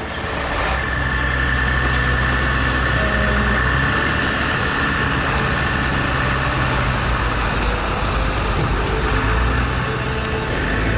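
A truck's engine running steadily, its low hum building over the first second and then holding, with a thin steady whine above it.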